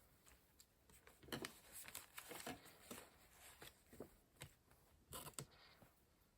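Faint, scattered rustles and soft taps of paper and craft materials being handled.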